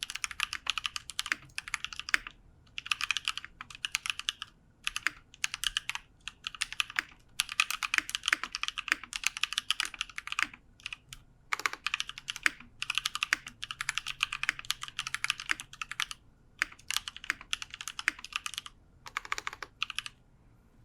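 Typing on a KBDfans 5° 60% mechanical keyboard with a brass plate, lubed Drop Holy Panda tactile switches and GMK keycaps. Fast runs of keystrokes come in bursts a second or two long, broken by short pauses, and stop shortly before the end.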